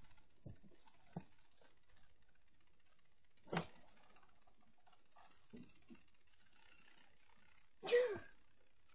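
Quiet handling noise of someone moving about on a car's back seat: faint rustling, a few soft knocks and a sharper click about three and a half seconds in. Near the end a girl makes a short vocal sound that falls in pitch.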